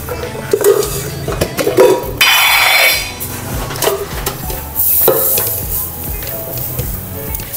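Background music, with clinks and knocks of metal-lidded kitchen canisters and a glass jar being handled, and a louder rushing noise lasting under a second about two seconds in.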